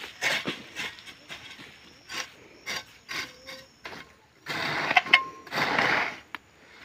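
Steel hoe blade chopping and scraping through soil and weeds while weeding a sweet potato bed: a run of short, quick strokes, then two longer, louder scrapes about two-thirds of the way in.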